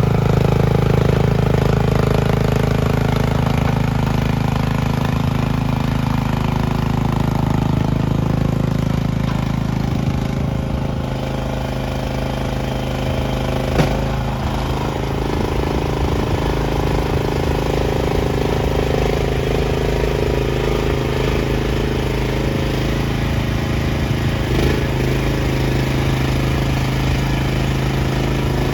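Mini skid steer engine running steadily, its note changing about ten seconds in, with a sharp metallic click about halfway through and a softer one near the end.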